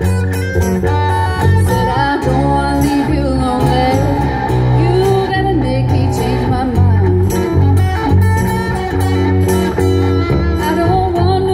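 Live band amplified through PA speakers: a woman singing lead over strummed acoustic guitars and an electric bass, in a bluesy style.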